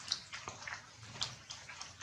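Rainwater dripping onto wet leaves and ground: irregular, sharp drops, several a second.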